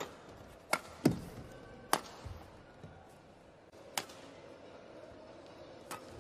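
Badminton rally: sharp strikes of rackets on a shuttlecock, about six hits at uneven intervals, the loudest just after a second in, over a faint steady hum.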